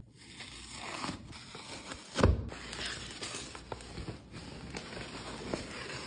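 Cardboard packaging being handled: rustling, scraping and flaps knocking, with a dull thump about two seconds in.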